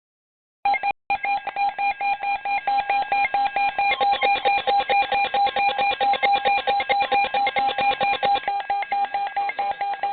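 Emergency Alert System alert signal: a harsh electronic tone chopped into rapid, even pulses, several a second. It starts a little under a second in, with a brief dropout just after it starts, and sounds ahead of the warning message.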